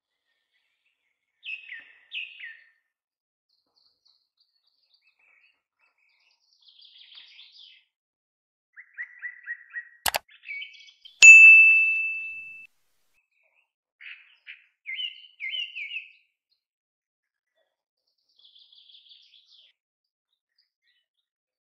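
Birds chirping in short phrases a few seconds apart. About ten seconds in comes a sharp mouse click, then a bell ding that rings out for about a second and a half, the sound effect of a subscribe-button animation.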